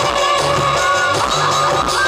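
Live Nagpuri folk music played loud through a stage PA: a steady drum beat and pulsing bass notes under a held melody line that slides upward.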